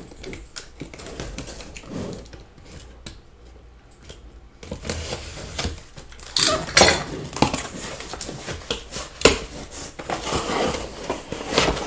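Cardboard shipping case being handled and worked open: scraping and rustling of cardboard with sharp knocks as tightly wedged boxes are pulled loose. It is fairly quiet for the first few seconds, then gets busy and loud about four and a half seconds in.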